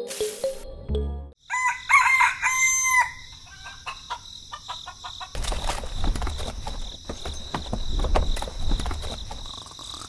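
A rooster crowing once, beginning about one and a half seconds in. From about five seconds in comes a low rumble with rapid clicks.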